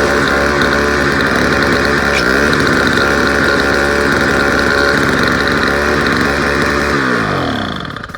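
Small two-stroke weed-whacker-type engine on a snowblower running steadily at high speed, its pitch dipping briefly about two seconds in. Near the end it winds down, the pitch falling as the engine slows.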